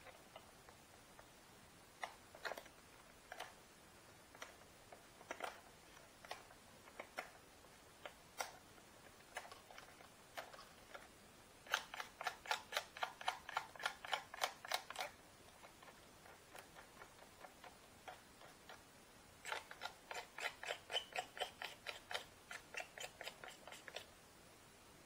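A hand tool scraping over the hardened CA-glued break of a carbon fibre model-plane fuselage, smoothing the bumps. Scattered single clicks and handling at first, then two runs of quick, even strokes, about four or five a second, one near the middle and one near the end.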